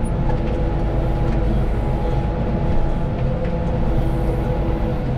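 White 2-135 tractor's diesel engine running steadily under load, with a constant pitched drone.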